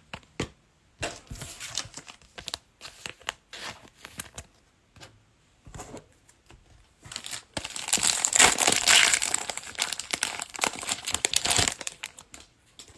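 Foil wrapper of a Panini Playoff football card pack crinkling and tearing open. Scattered light rustles and crackles come first, then a long, loud spell of crinkling from about eight seconds in to nearly twelve.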